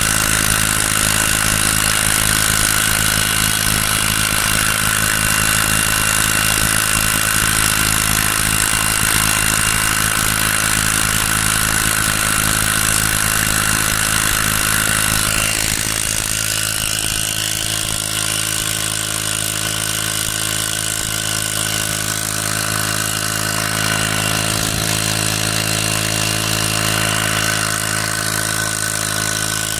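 Brush-cutter engine driving a small boat, running steadily. About halfway through, its note drops slightly and it gets a little quieter.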